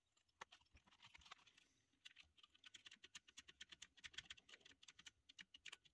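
Acorn Electron keyboard's spacebar and keys being pressed repeatedly: faint, rapid clicking, sparse at first and then a quick run of presses from about halfway through, as the refitted spacebar is tried out.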